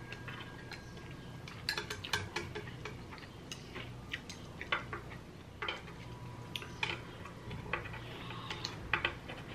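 Close-miked chewing of a pan-fried dumpling: irregular wet, sticky mouth clicks and squelches, with a light chopstick click against the plate near the end.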